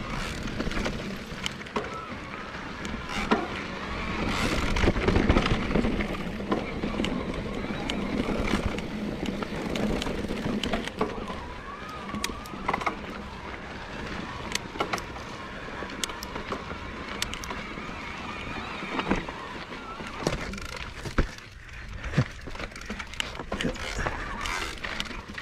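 2021 Cannondale Moterra Neo e-mountain bike climbing a rough dirt trail: steady tyre and wind noise with frequent sharp knocks and rattles as it rolls over bumps, louder for a couple of seconds about four seconds in.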